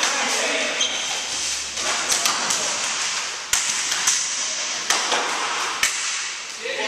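Ball hockey in a gymnasium: sharp clacks of hockey sticks striking the ball and the wooden floor, a handful of them with the loudest in the second half, over a steady hall noise.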